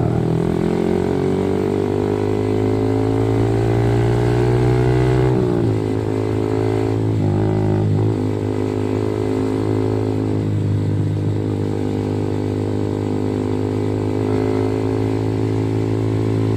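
Yamaha R15 V3's 155 cc single-cylinder engine through an aftermarket R9 racing exhaust, heard from the bike while riding. The loud exhaust note climbs steadily in pitch as the bike accelerates, drops sharply about five and a half seconds in, then holds at a steady cruise.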